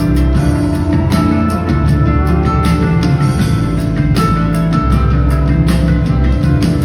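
Live band music in an instrumental passage: a regular drum beat over a deep, sustained bass line.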